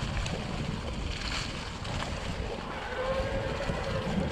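Wind buffeting the microphone over the rumble of bike tyres rolling on the trail during an e-mountain-bike ride. About three seconds in, a steady whine comes in from the e-bike's motor.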